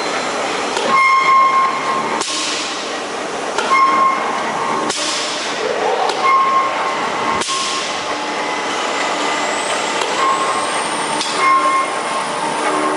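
L&J No.80 80-ton OBI punch press running and being cycled several times, a few seconds apart: each stroke brings a sharp metallic knock and a burst of air hiss from its pneumatic clutch, over the steady run of the motor and flywheel.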